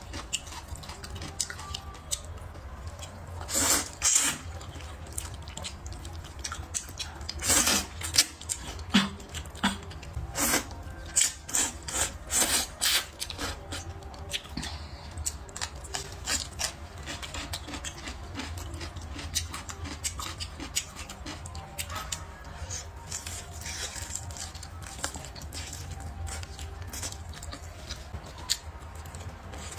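Close-miked eating: wet chewing and mouth clicks as a woman eats noodles and braised meat, with clusters of louder bursts about 4, 8 and 11 to 13 seconds in, over a steady low hum.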